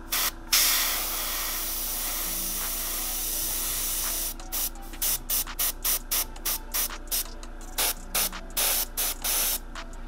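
Airbrush spraying: two short puffs, then one long hiss of about three and a half seconds, then a quick string of short puffs, roughly three a second, until near the end.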